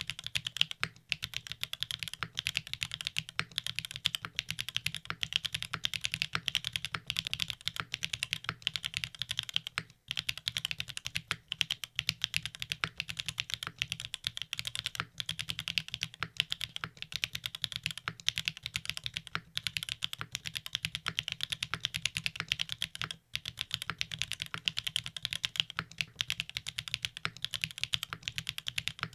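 NEO80 mechanical keyboard being typed on steadily: a fast, continuous stream of keystroke clacks from Gateron sample switches in an aluminium plate on gasket-jacket mounts, with no foam inside the case. There are a few brief pauses in the typing.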